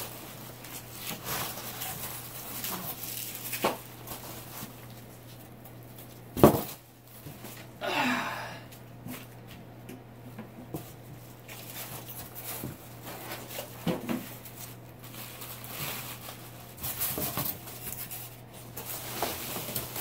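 Styrofoam packing peanuts and packing material rustling and crackling while a heavy fire alarm control panel is worked out of its box, with one loud thump about six and a half seconds in and a short sound falling in pitch just after it.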